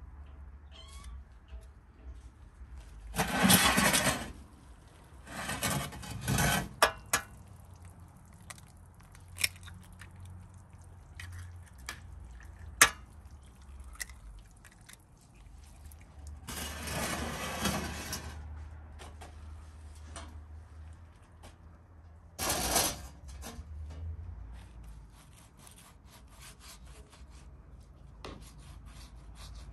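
Kitchen handling sounds from hands, a clay bowl and a baking tray: several scraping, rubbing bursts of a second or two each, with scattered sharp clicks and taps. The loudest tap comes about thirteen seconds in.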